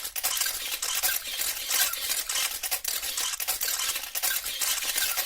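Continuous rapid clicking and rattling of small hard objects.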